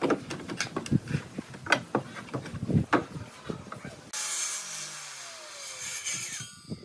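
Irregular knocks and taps of wood being handled and worked. About four seconds in they give way abruptly to a steady hiss with a slowly falling tone.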